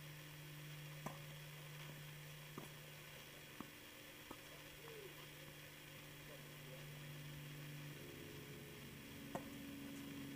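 Faint tennis rally: sharp racket-on-ball pops, three in the first four seconds and a louder one about nine seconds in, over a steady low hum whose pitch drops about eight seconds in.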